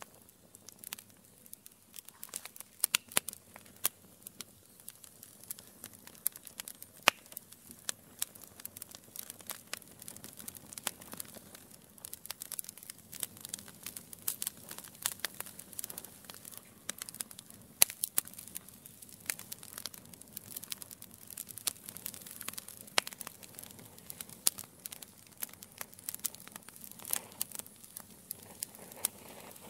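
Wood fire crackling: a dense, irregular run of sharp pops and snaps, some much louder than others, over a faint hiss from the burning coals.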